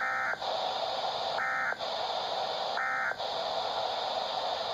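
Emergency Alert System end-of-message data bursts from a weather radio: three short, buzzy digital chirps about a second and a half apart, with radio hiss between them, signalling the end of the warning broadcast.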